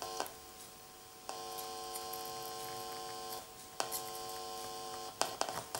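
Mains hum through a small guitar amplifier that is monitoring the pickups being wired in. The steady hum comes on about a second in, cuts out briefly past the middle, returns with a click, and stops near the end, followed by a series of sharp clicks.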